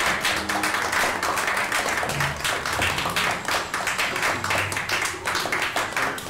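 Several people clapping their hands in applause: a dense run of claps.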